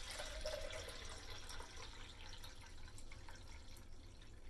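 Water pouring in a faint, steady trickle from a plastic measuring jug into a glass beaker.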